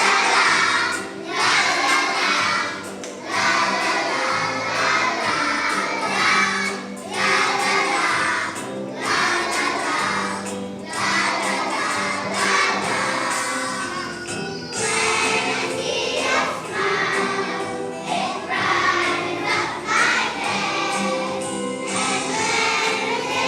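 A kindergarten children's choir singing a song together over instrumental accompaniment, in phrases of a couple of seconds each.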